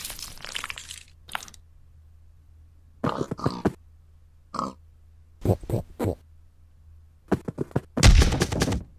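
Brief crunching clatter at the start, then pig grunts and oinks in several short bursts. Near the end comes a louder burst with a deep thump.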